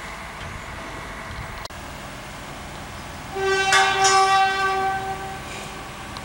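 A horn sounds one steady, single-pitched blast for about two seconds, starting a little over three seconds in, over a steady background noise.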